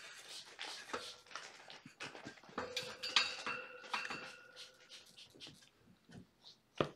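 Crinkling and rustling of a plastic packet of cleaning pads being handled, with many small clicks and taps. A faint steady high tone runs for a couple of seconds in the middle, and a single sharp tap comes near the end.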